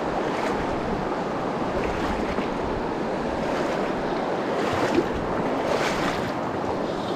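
Shallow river running fast over a stony riffle: a steady rush of water, with wind buffeting the microphone. A short tap sounds about five seconds in.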